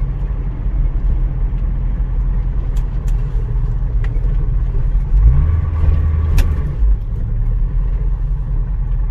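A 1940s car being driven, its engine running with a steady low drone. About five seconds in the engine note rises briefly and holds higher for a second or so, with a few sharp clicks scattered through.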